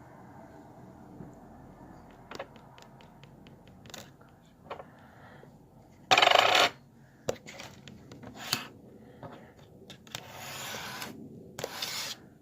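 Utensil scraping the inside of an herb grinder to get the keef out: light clicks and clinks of hard parts, then short scraping strokes, the loudest about six seconds in and two more near the end.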